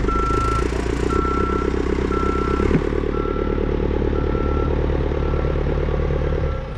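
Diesel engine of heavy equipment running steadily while its reversing alarm beeps about once a second. There is a single clank a little under halfway through.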